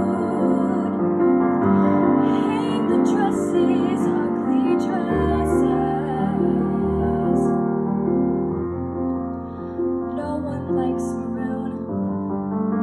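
Slow, gentle piano accompaniment playing a ballad, with sustained notes and chords.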